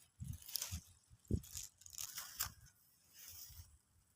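Faint, irregular rustling and scraping with a few soft low thumps, like handling noise or movement in dry leaves.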